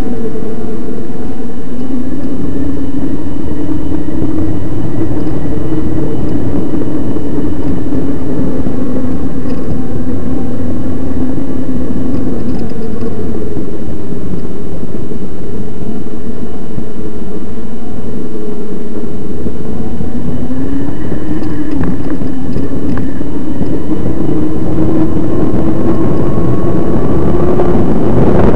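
Electric mountain bike's motor whining at a quarter of its power while the rider pedals, its pitch drifting with speed and rising about two-thirds of the way through and again near the end, over a heavy low rumble.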